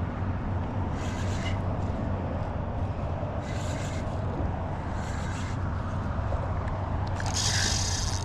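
Boat motor running at a steady low hum, with four short bursts of hiss over it.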